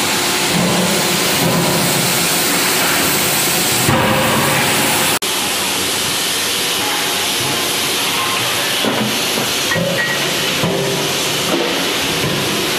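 Loud, steady hiss of forging-shop machinery with a few faint knocks. It drops out sharply about five seconds in, where the recording is cut, and a similar hiss picks up again.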